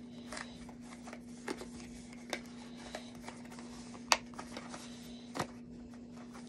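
Light clicks, taps and rustles of a small cardboard product box being handled and opened, with a sharper click about four seconds in and another about five and a half seconds in. A faint steady hum runs underneath.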